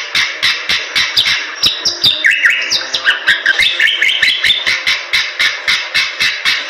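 Bali myna singing: short rising and falling whistled notes over a fast, regular run of sharp clicks, about four a second.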